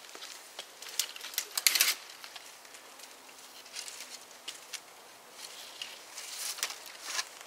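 Twigs rustling and crackling in short bursts as a long, thin freshly cut branch is pulled free of the surrounding brush and handled. The loudest burst comes just before two seconds in, with another near the end.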